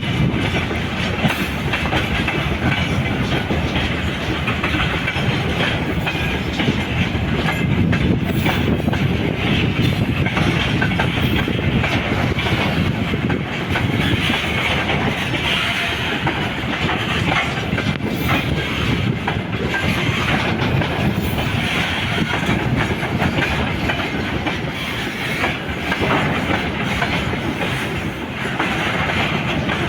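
Moving train's wheels clattering steadily over the rails, with a continuous rumble.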